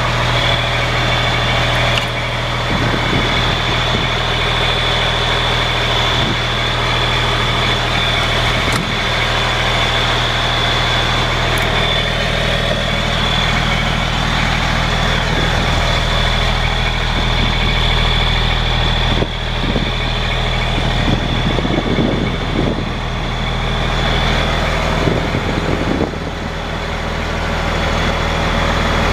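Diesel engine of a 2002 Freightliner FL80 Vactor truck running at a steady idle, heard up close, with a constant high-pitched whine over the engine note.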